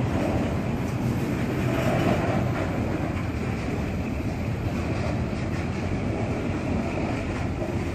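Covered hopper cars of a long freight train rolling past below: a steady rumble of steel wheels on the rails.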